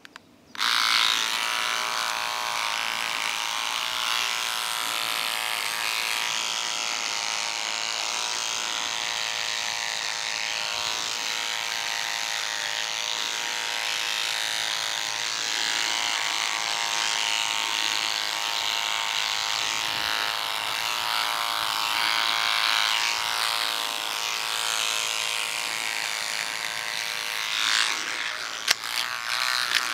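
Cordless electric beard trimmer switching on about half a second in and running with a steady buzz as it trims the beard.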